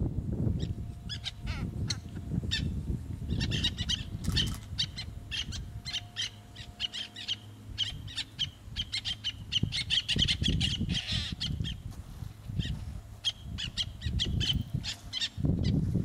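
Black-naped terns calling: many short, sharp, high-pitched calls in quick runs, busiest about ten seconds in, over a low rumble.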